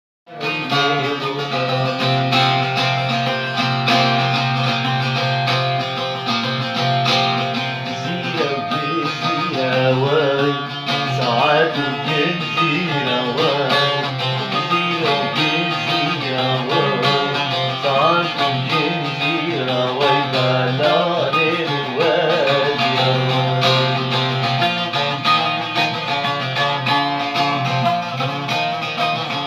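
Guitar music, with singing from about eight seconds in until about twenty-two seconds.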